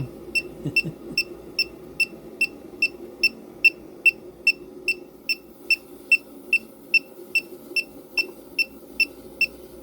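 Electronic refrigerant leak detector beeping at a steady rate of about two and a half high beeps a second, not speeding up: no leak is being picked up. A faint steady rush of refrigerant flowing through the air handler's evaporator coil runs beneath it.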